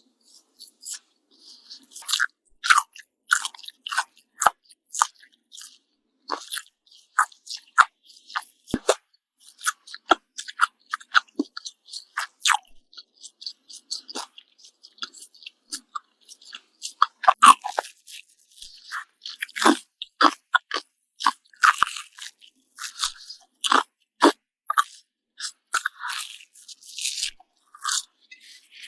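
Close-miked eating: crisp fried bacon bitten and chewed with dense, irregular crunching, then toast bitten and chewed later on.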